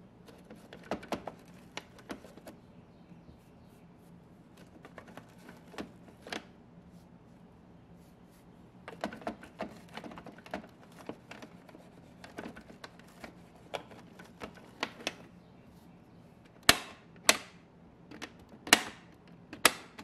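Plastic push buttons on a Bosch dishwasher's control panel clicking and rattling in scattered clusters as a toothbrush scrubs around them, then four loud, sharp single clicks near the end as the buttons are pressed. The buttons are being freed from the food build-up that makes them stick.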